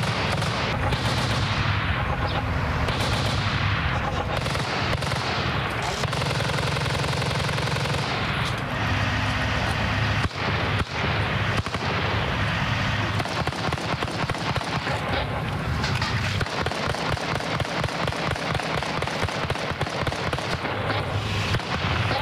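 Automatic rifle and machine-gun fire in a street battle: dense overlapping shots throughout. From about two-thirds of the way through comes a long, rapid, continuous burst.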